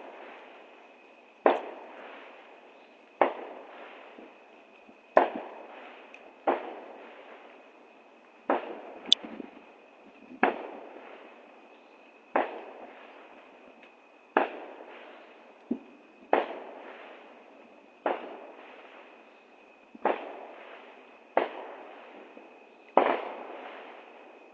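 Fireworks going off in a string of sharp booms, one about every one and a half to two seconds, each trailing off in a fading echo, over a steady high-pitched tone.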